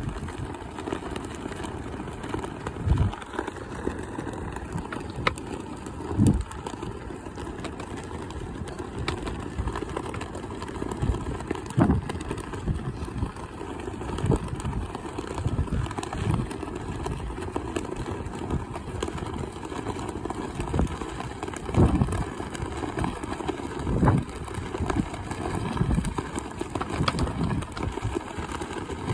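Strong wind buffeting the microphone: a steady low rumble that swells in gusts every few seconds.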